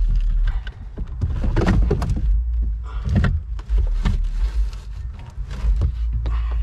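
Irregular knocks, scrapes and rubbing as a boat's steering cable is pushed and snaked through the hull under the dash, over a steady low rumble.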